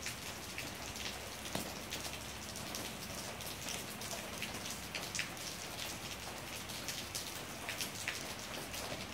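Steady rain with scattered sharper drips landing on wet concrete.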